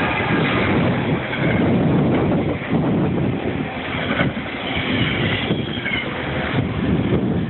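Blizzard wind gusting and buffeting the microphone, a loud rumbling rush that swells and eases.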